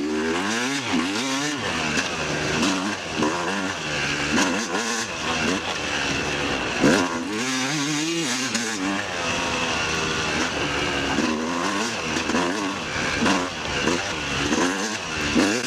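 Yamaha YZ250 single-cylinder two-stroke dirt bike engine being ridden hard, its pitch rising and falling repeatedly as the throttle is worked on and off.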